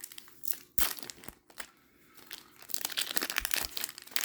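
Foil Pokémon booster pack wrapper being handled and crinkled: a sharp crackle a little under a second in, then dense crinkling from about three seconds in.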